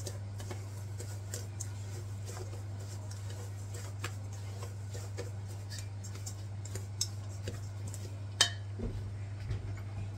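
Metal spoon scraping and clinking against a stainless steel mixing bowl as a crumbly semolina and yogurt mixture is stirred, with one sharper clink about eight seconds in.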